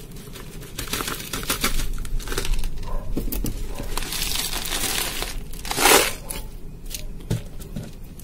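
Orchid substrate of small pine-bark pieces and fine gravel being poured from a plastic tub into a plastic pot: a dense crackling patter of grains landing, with one louder rush about two-thirds of the way through.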